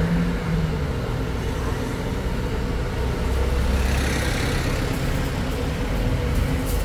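Street traffic noise: a steady low engine rumble, with a swell of hiss about four seconds in.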